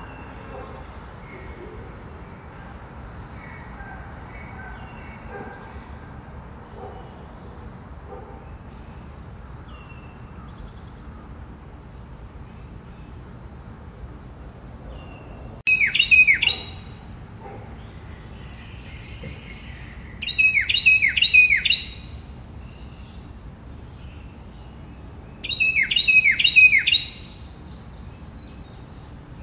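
Birds singing: faint scattered chirps, then one bird's song loud and close in three phrases about five seconds apart, each a quick run of three or four falling notes.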